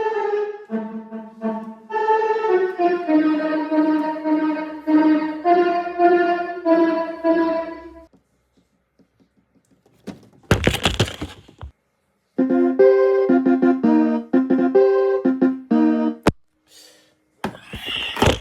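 An electronic ringtone melody of piano-like keyboard notes plays, breaks off about eight seconds in, and starts again a few seconds later. In the gap and again near the end come short bursts of noise, and there is a sharp click just after the melody stops the second time.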